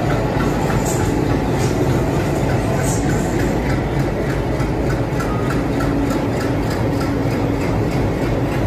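Freight train passing close by, hauled by several diesel locomotives whose engines run loudly as they go past, followed by tall covered freight wagons. The wheels click in a rapid, regular rhythm over the rail joints in the second half.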